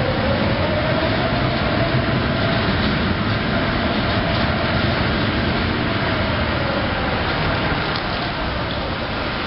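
Overhead wood-chip grab crane running: a steady mechanical rumble with a motor whine that rises in pitch at the start and falls away about seven seconds in.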